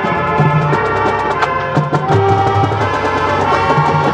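Marching band playing: brass horns holding chords over low bass notes, with percussion strikes throughout.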